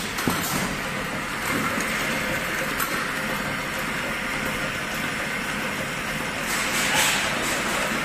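Automatic can seaming machine running with its star wheel and conveyor: a steady mechanical hum and hiss with a few light clicks, swelling louder for about a second near the end.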